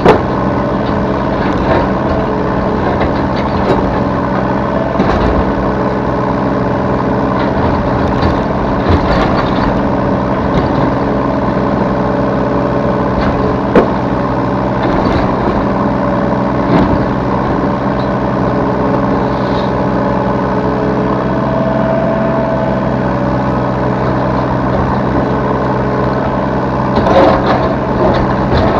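Yanmar B3 Sigma 3-ton mini excavator's diesel engine running steadily under working load, heard from the operator's seat, with a few sharp knocks standing out over it.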